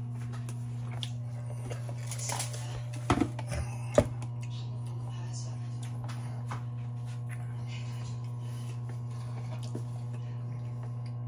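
Steady low hum, with a few short clinks and knocks of tableware about three and four seconds in.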